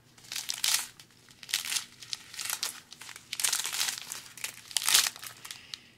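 Small clear plastic bags of diamond painting drills crinkling and rustling as a strip of them is handled and flipped through, in irregular bursts, the loudest about five seconds in.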